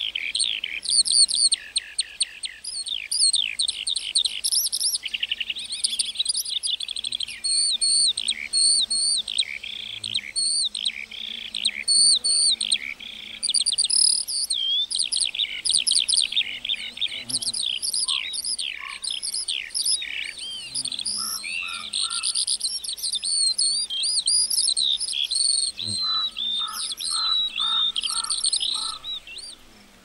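A lark singing one long, unbroken song of rapid, high warbling and trilling notes that stops just before the end. Twice, a little after the middle and again near the end, a lower, evenly pulsed series of notes sounds beneath it.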